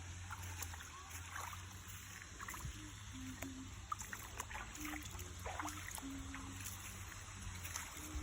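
Steady rush of water from a small waterfall, over a low rumble, with scattered short clicks and a few faint brief tones.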